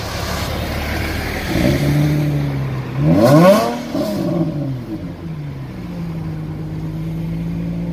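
Nissan 350Z's V6 engine revved through its exhaust from idle. The revs step up, climb sharply to a peak about three and a half seconds in, then drop back and settle into a steady idle.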